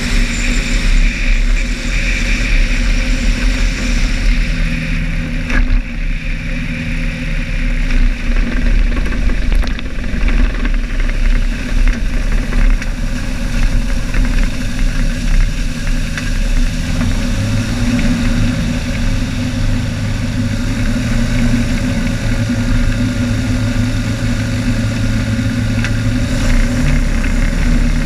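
Engine of a RANS S7 Courier floatplane running at low power as it taxis on the water, the propeller turning slowly. Steady, with small shifts in pitch.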